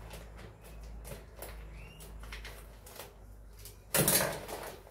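Scissors snipping open a plastic rice bag, with faint clicks and crinkles, then a short, louder rustle of the plastic bag about four seconds in.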